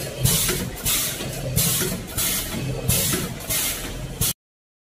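Vertical form-fill-seal pouch packing machine running, with a low hum and sharp hissing bursts repeating roughly every half second to a second. It cuts off abruptly about four seconds in.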